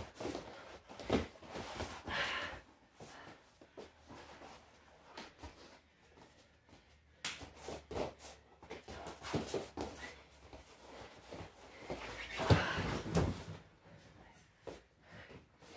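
Wrestlers grappling on foam wrestling mats: irregular thuds of bodies and knees hitting the mat, mixed with scuffing and shuffling of feet and clothing. The loudest run of thumps comes about twelve to thirteen seconds in, as both go down together onto the crash pads.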